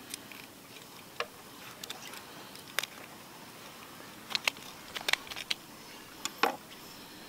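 Small knife cutting fish bait by hand, giving scattered light clicks and taps, about a dozen over several seconds, over a faint steady hiss.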